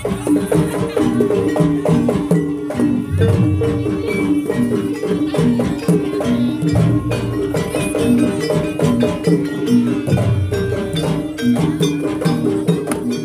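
Live jaranan gamelan music: a repeating melody of struck, pitched metal notes over a running pattern of drum strokes and rattling percussion.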